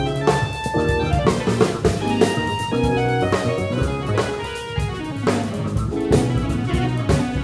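A live band playing instrumental music: two electric basses carry the notes over a drum kit's steady beat, with kick drum and cymbal hits.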